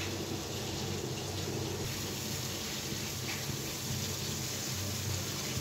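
Water with crushed ginger boiling hard in a steel pot: a steady bubbling hiss, with a low steady hum underneath.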